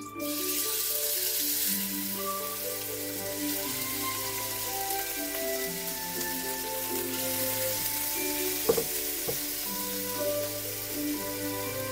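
Raw diced chicken dropped into hot oil in a wok, sizzling and frying steadily; the sizzle starts suddenly as the meat goes in. There are two sharp knocks about three-quarters of the way through.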